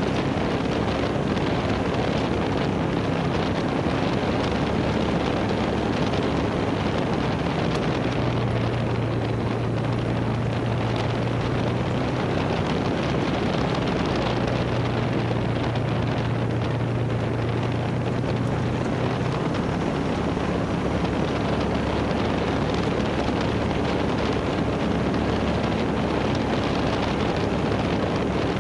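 UTV engine and drivetrain running steadily on a trail ride, with wind noise on the microphone. The engine's low drone grows stronger twice for several seconds in the middle.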